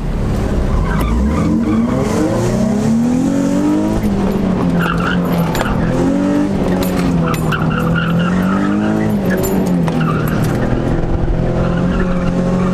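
Nissan 350Z's V6 engine heard from inside the cabin, accelerating hard from the start with the pitch climbing over the first few seconds. After that the revs rise and fall with the throttle through the turns, and the tyres squeal several times.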